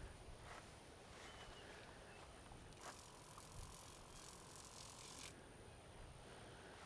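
A steady spray hiss for about two and a half seconds, starting and stopping abruptly about three seconds in, over otherwise near-silent outdoor ambience.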